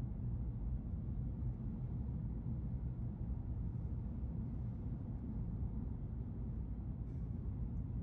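Car driving at road speed, heard from inside the cabin: a steady low rumble of tyre and engine noise.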